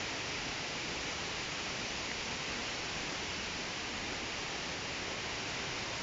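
Steady rush of falling water from a nearby waterfall, an even hiss with no breaks.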